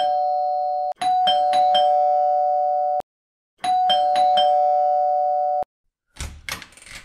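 Electronic doorbell chime rung over and over in three bursts, each a quick run of two-tone ding-dongs that is cut off short, as if the button is pressed impatiently. A short clatter follows near the end.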